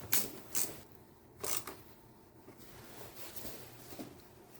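A few short clicks and taps of a hand tool on a small 5.5 mm fastener as it is tightened, three sharper ones in the first second and a half, then faint scattered ticks.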